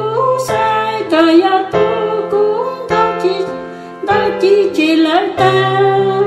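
Music: a voice singing a slow melody over keyboard chords that change about every second.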